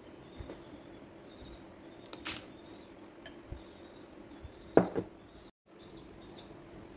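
Kitchen handling sounds of a glass mixing bowl and spoon: a few light taps, then two louder knocks close together about five seconds in, over a faint steady hum.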